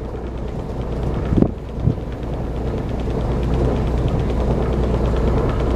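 Boat engine running with a steady low hum that grows gradually louder. Two dull knocks come about a second and a half in, half a second apart.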